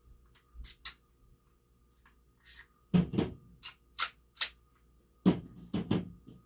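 CO2 blowback airsoft pistol (Steyr L9-A2) firing 0.25 g BBs: sharp snaps of the shots and the cycling slide, with lighter clicks between. The two loudest shots come about three seconds and five seconds in.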